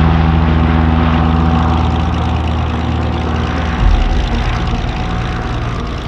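Propeller airplane engine running at a steady pitch, getting gradually quieter, with a brief low bump about four seconds in.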